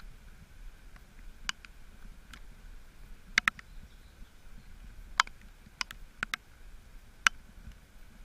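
Sharp, irregular metallic clicks, some in close pairs, from a departing passenger train's wheels crossing rail joints, over a faint steady hum.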